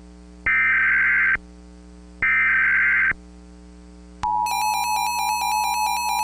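Emergency Alert System SAME header: two bursts of digital data tones, each just under a second long and about a second apart. About four seconds in, the EAS attention signal begins, a steady two-tone alert tone that holds.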